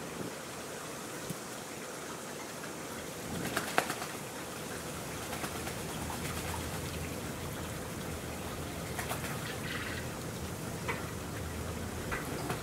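Steady trickle of shallow running water, with a few brief bird calls and a short cluster of sharp clicks about four seconds in.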